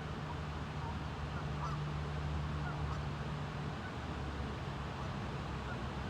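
Waterfowl on the river giving short, faint calls every second or so over the steady rush of the water and wind. A low steady hum underneath stops about four seconds in.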